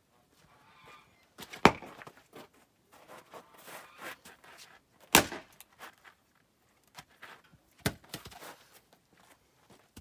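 An axe splitting firewood rounds on a chopping block: three sharp blows, roughly two to three seconds apart. Between them come lighter knocks of wood pieces being set up and moved.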